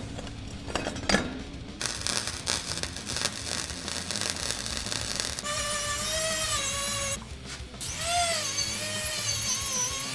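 Flux-core welding crackle for a few seconds, then a power tool whining with a wavering pitch that dips and recovers as it works the weld, cutting out briefly partway through.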